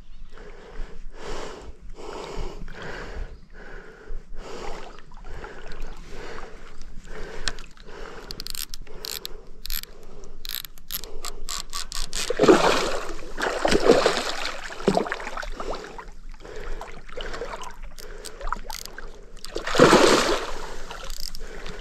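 Baitcasting reel being cranked and clicking as line is wound in, with a run of rapid clicks partway through. A hooked snakehead splashes loudly at the water's surface about twelve seconds in and again near the end.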